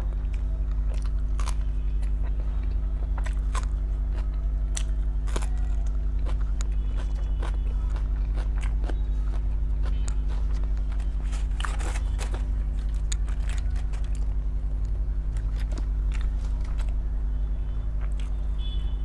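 A person chewing and biting food close to the microphone, with scattered crisp crunches and mouth clicks, over a steady low hum.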